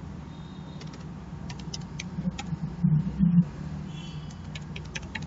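Computer keyboard keystrokes: sparse, irregular clicks as text is typed, over a steady low hum. A short low rumble, the loudest sound, comes about three seconds in.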